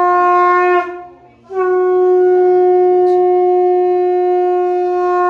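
Conch shell (shankha) blown in two long, steady blasts on one note. The first blast breaks off about a second in for a breath, and the second starts about a second and a half in and is held for about four seconds.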